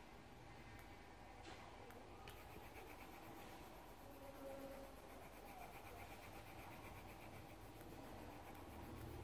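Near silence, with faint, steady scratching of a pencil on paper, as in colouring.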